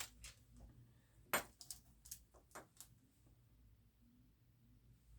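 Faint clicks and taps of small metal airgun parts being handled, with one sharper click about a second and a half in and a few lighter ones after it.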